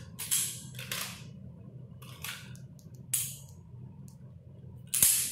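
Semi-automatic pistol being loaded at the make-ready command: about five sharp metallic clacks of magazine and slide, the loudest near the end.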